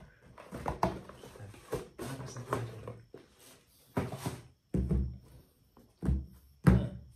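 Handling noise as a pair of Li-Ning badminton shoes is lifted out of a box lined with tissue paper, with paper rustling. In the second half the shoes are set down on a table with a few thumps.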